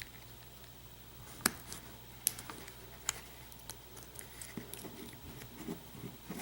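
Small metal tool clicking and scraping against a lock core's retaining C-clip as the clip is worked off: three sharp clicks spaced under a second apart, then softer ticks and scrapes.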